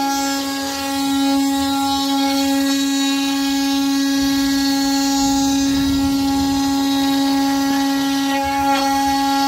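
CNC router spindle running with a steady, unchanging whine. A rougher low rumble swells and fades around the middle.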